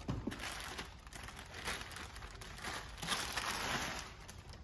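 A clear plastic bag crinkling and rustling as it is worked off a radio head unit, with a louder stretch about three seconds in.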